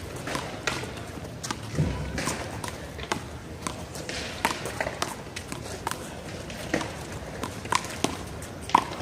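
A one-wall handball rally: a rubber handball smacking the wall, the players' hands and the pavement in sharp, irregular strikes, the loudest near the end.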